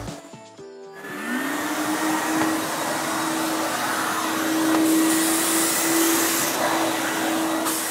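Wet vacuum switched on about a second in: its motor whines up to speed, then runs steadily with a loud suction hiss as the squeegee nozzle draws water off a wet-ground stone slab. The hiss brightens for a moment near the middle.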